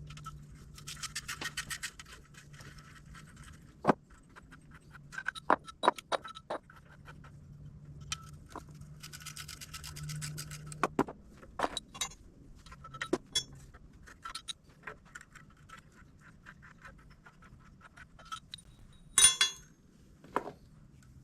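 Hand work with bolts and wrenches on the backhoe's torque converter and flywheel: scattered metal clinks and knocks, two stretches of rapid ratchet clicking, and one sharp metal clatter near the end, the loudest sound.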